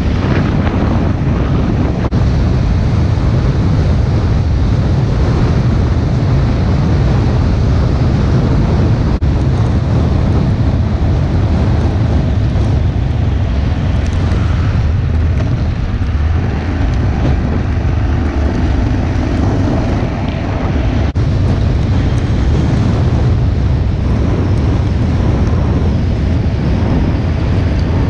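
A car driving, with a steady low rumble of road and engine noise and heavy wind buffeting on the microphone.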